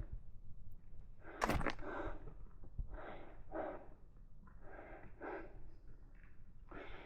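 A hiker breathing hard in repeated puffs, in and out roughly once a second, from the effort of climbing steep ground. A single sharp knock sounds about a second and a half in.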